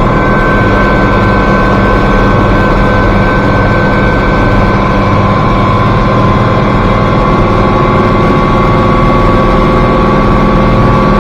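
International Harvester 1086 tractor's diesel engine running steadily under a constant throttle.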